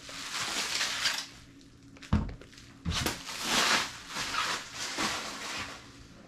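Bubble wrap and packing tape being handled and pulled away, rustling and crinkling in several bursts, with a couple of dull knocks about two and three seconds in.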